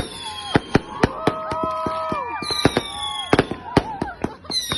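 New Year fireworks going off in quick, irregular pops. Several high whistles fall slightly in pitch, near the start, about halfway through and near the end.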